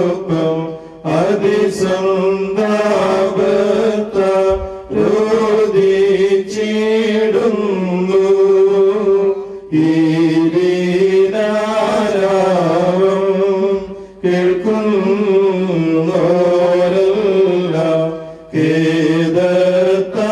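Male clergy chanting a slow liturgical funeral hymn through a microphone, in long held phrases broken by short breaths about every four to five seconds.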